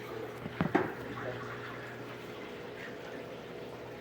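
Water running into an Electrolux LTD06 top-load washing machine from an open tap, with a steady low hum. A sharp double knock sounds just under a second in.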